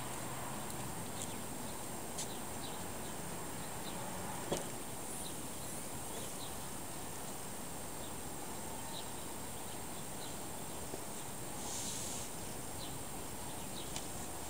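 Steady outdoor background hiss with a few faint clicks and knocks, the sharpest about four and a half seconds in, from the rear hatch of a Toyota Prius being opened and luggage being handled at the cargo area.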